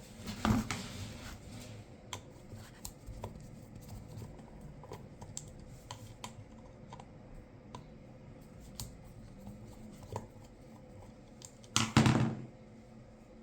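Hand work on small parts at a bench: scattered light clicks and taps, with a louder rustle or clatter about half a second in and the loudest one near the end.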